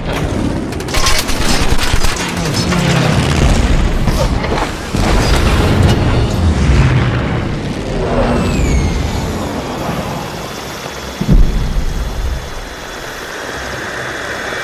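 Film air-raid sound effects: repeated heavy booms and blasts over a dense rumble. About eight seconds in comes a descending whistle of a falling bomb, and a sharp blast a little past eleven seconds.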